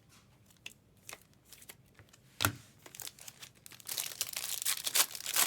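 Trading-card pack wrapper being torn open and crinkled: scattered small clicks and handling noises, a sharp snap about two and a half seconds in, then steady crinkling of the wrapper near the end.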